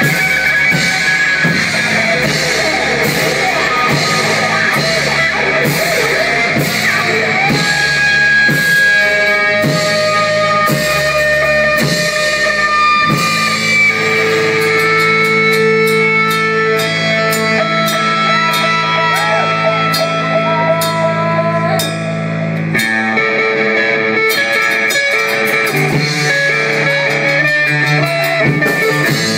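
A live rock band playing electric guitars over a drum kit. Busy drumming gives way about halfway through to long, ringing guitar notes with sparser beats, and the full drumming picks up again a few seconds before the end.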